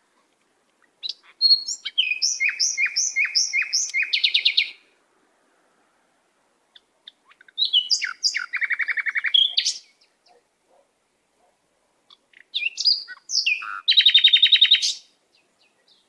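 A songbird singing three separate phrases, each a short run of repeated notes ending in a fast trill, with clear pauses between them.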